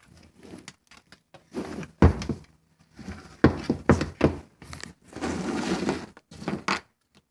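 Hands handling a headlight wiring harness and its plastic plug connectors: irregular clicks and knocks with rustling, the loudest knock about two seconds in and a quick cluster of clicks a little later.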